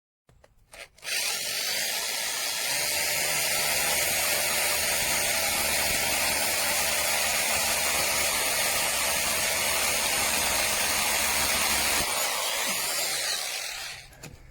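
Bosch Professional GBH 2-21 SDS-plus rotary hammer running at full speed for about eleven seconds, then winding down near the end.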